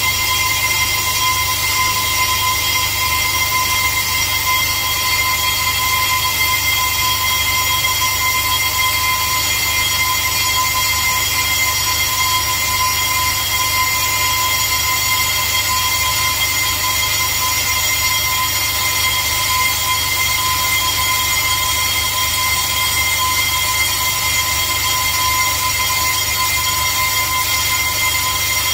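Brake lathe spinning and turning a Zimmermann brake disc to remove its runout: a steady whine with a clear high tone over a low hum, unchanging in pitch and level.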